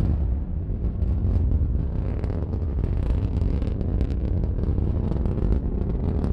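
Minotaur IV rocket's solid-fuel first-stage motor roaring during ascent: a steady, loud, deep rumble with crackling.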